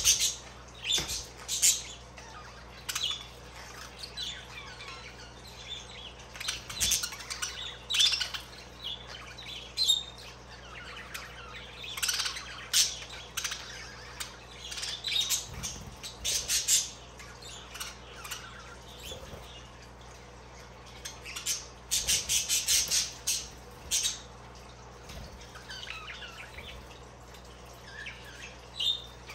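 Budgerigars chirping and squawking in short, scattered calls, with a rapid run of calls about three-quarters of the way through.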